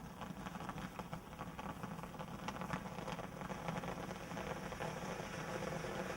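Ground firework crackling and hissing, a dense rain-like stream of rapid small crackles that grows slowly louder.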